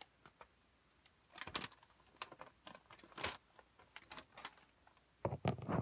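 Scattered crinkles and rustles of a plastic bag and a paper manual being handled, with a louder burst of handling noise near the end.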